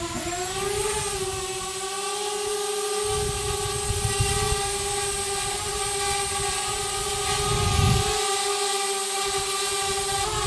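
Drone in flight, its propellers giving a steady whine that rises slightly in pitch about a second in and then holds. A low rumble comes and goes twice beneath it.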